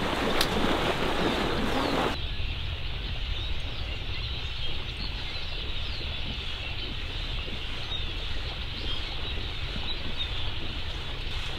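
Marsh water splashing and sloshing as a hunter wades through it and a retriever swims back with a duck, with small birds chirping over a steady wash of noise. The sound is louder and fuller for the first two seconds.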